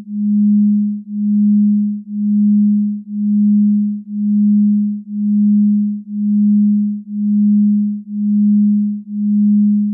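A single low electronic pure tone, pulsing evenly: each pulse swells and fades, about once a second.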